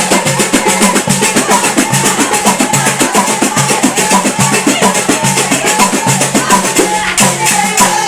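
Moroccan chaabi-style music with quick, dense drum percussion under a melody line.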